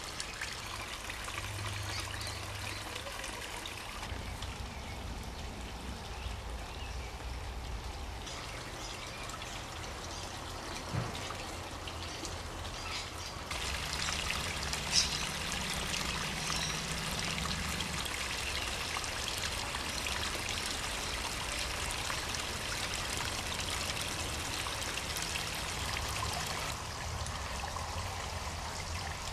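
Water from a backyard pond's waterfall and creek trickling and splashing steadily, with two brief clicks partway through.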